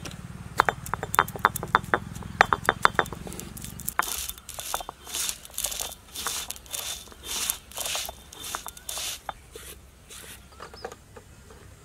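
Black peppercorns crackling and popping as they are crushed under the stone roller of an ammikal, a stone grinding slab. From about four seconds in, the roller scrapes back and forth over the crushed pepper in rhythmic gritty strokes, about two a second, which grow fainter near the end.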